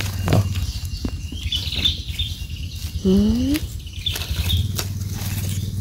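Rustling and crackling of forest leaf litter and twigs, with scattered clicks, over a steady low rumble. About three seconds in comes one short rising vocal sound.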